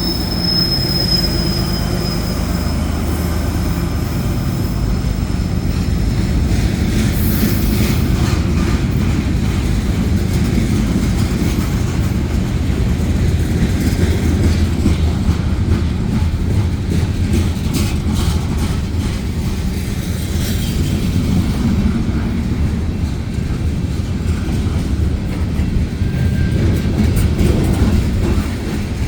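Union Pacific manifest freight train rolling past, a steady heavy rumble and clatter of steel wheels on the rails. A thin high wheel squeal fades out over the first couple of seconds.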